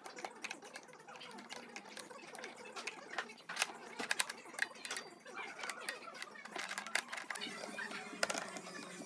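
Metal parts of a dental chair's armrest mechanism being handled and fitted by hand: irregular clicks, light metallic knocks and rattles, coming thickest a few seconds in and again near the end.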